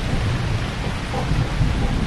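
Heavy rain pouring steadily, a dense even hiss with a deep, uneven low rumble underneath.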